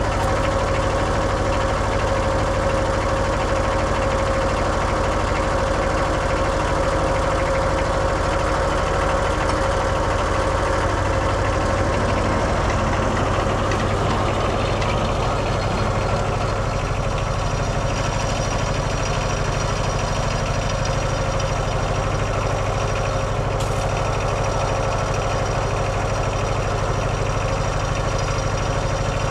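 Kohler 17 hp diesel engine of a Woodmizer LT15 band sawmill running steadily, with a high thin whine coming in a little over halfway through.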